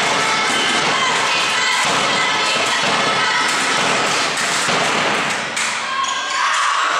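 Spectators and players in a sports hall cheering and shouting over a dense clatter of thumps and claps between volleyball points. The din drops away about five and a half seconds in.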